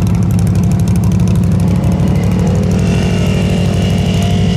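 Off-road vehicle engine running loudly and steadily at close range, with a second, higher engine note wavering in pitch from about halfway through.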